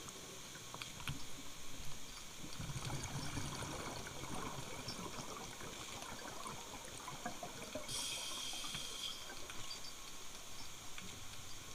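Underwater sound of a scuba diver breathing through a regulator. There is low bubbling of exhaled air a few seconds in, and a brief hiss of an inhalation about eight seconds in, over faint steady underwater crackling.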